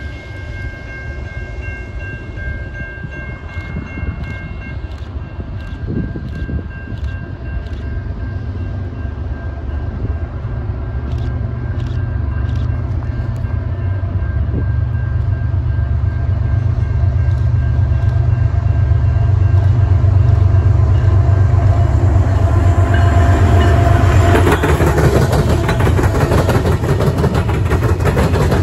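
Diesel freight locomotives approaching with a low engine rumble that grows steadily louder, and a horn sounding for the first few seconds. Near the end the locomotives draw alongside and wheel and rail noise rises.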